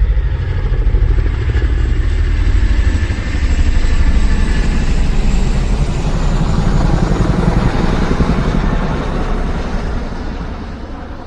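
A loud vehicle engine with a low, rapidly pulsing rumble that fades away over the last few seconds.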